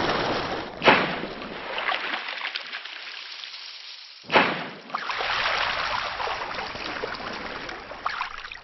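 Splashing and rushing liquid sound effects, with two sudden splashes, about a second in and just past four seconds, each fading into a hiss.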